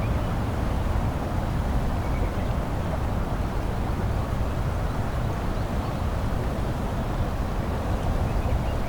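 Steady rumble and hiss of traffic on an expressway, even and unbroken, heaviest in the low end, with a few faint short chirps above it.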